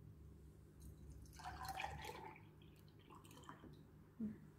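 Pineapple juice poured from a carton into a plastic glass: a faint stream splashing into the glass, loudest about a second and a half in, then a few small ticks.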